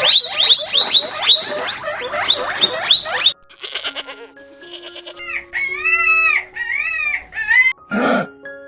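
Farm animal calls over background music: a dense flurry of rapid, high chirps that cuts off suddenly after about three seconds, then held music notes with a long, loud animal call that rises and falls twice, and a gruff burst near the end.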